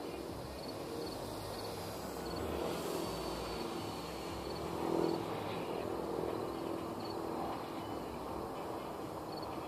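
Electric motor and propeller of a Hobbyking Flybeam Nightflyer RC plane buzzing in flight, swelling to its loudest about halfway through and then easing off a little.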